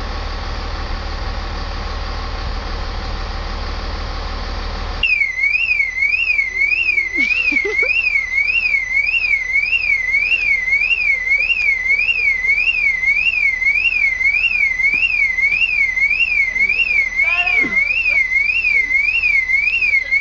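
A steady low hum, then about five seconds in a car alarm siren goes off suddenly, a loud warbling tone rising and falling about one and a half times a second.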